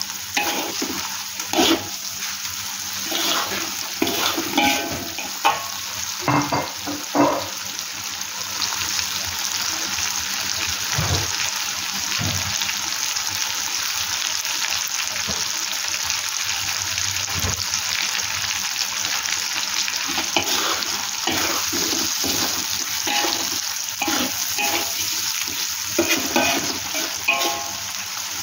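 Sambal chili paste with hard-boiled eggs sizzling in a metal wok, with a metal spatula scraping and knocking against the wok as it is stirred. The stirring strikes come mostly in the first several seconds and again in the last several, with a steadier sizzle in between.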